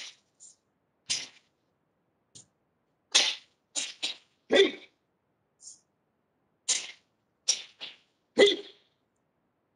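A karate practitioner's short, forceful exhalations punctuating the strikes and kicks of the kata Seisan, about a dozen sharp breathy bursts at irregular intervals. Heard over a video-call link, with dead silence between bursts.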